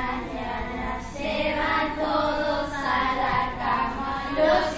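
A group of young voices singing together in held notes.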